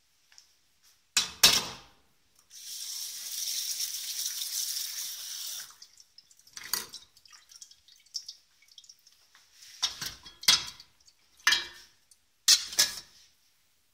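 Kitchen tap running into a stainless steel pan of cut potatoes for about three seconds, rinsing them. A sharp clank of the metal pan about a second in, and a string of metal clanks of the pan and its steamer insert being handled near the end.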